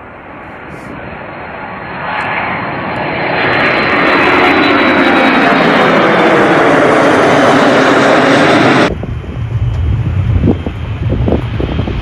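C-5M Super Galaxy's four GE F138 (CF6-80C2) turbofans passing close, the jet noise swelling for about four seconds and then staying loud, with a whine sliding in pitch as the aircraft goes by. About nine seconds in the sound cuts off abruptly to a low, gusty rumble with wind on the microphone.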